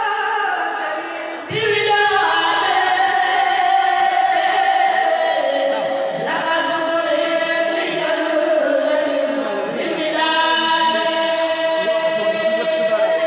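A kourel, a Senegalese religious chanting group of young male voices, chanting together in unison without instruments through microphones. The chant moves in long held notes, with new phrases beginning about a second and a half, six and ten seconds in.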